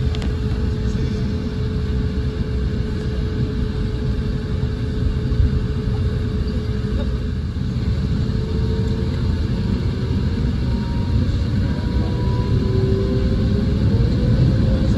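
Inside the cabin of an Airbus A350-900 taxiing: a steady low rumble from its Rolls-Royce Trent XWB engines at taxi power, with a faint steady whine. In the second half a higher whine rises slowly in pitch and the noise grows a little louder.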